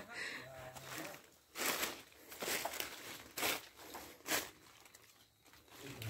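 Footsteps crunching through dry leaf litter and brush on a rocky slope: separate crunches and rustles about once a second.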